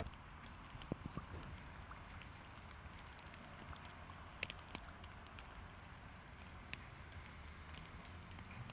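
Faint rail-yard ambience: a steady low rumble with scattered light ticks and a few sharper clicks.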